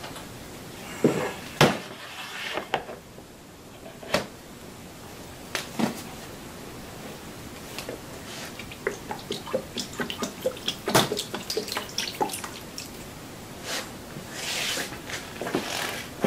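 Hard maple cutting board being dipped and worked in a plastic tub of food-grade mineral oil: the oil drips and splashes in small ticks, with a few sharp knocks as the board is handled in the tub.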